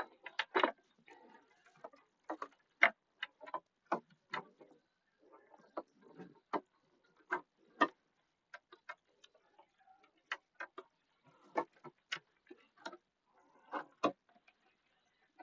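Irregular light clicks and knocks of plastic motorcycle body panels and their fasteners being handled and fitted back into place, about one or two a second.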